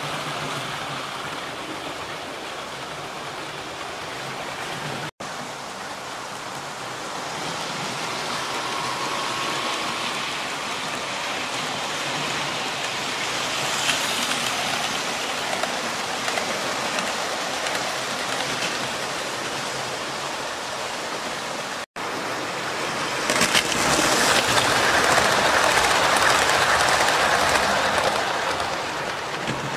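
00 gauge model trains running on a layout: a steady rattling running noise of wheels on the track, louder for several seconds near the end as a train comes close. The sound cuts out for an instant twice.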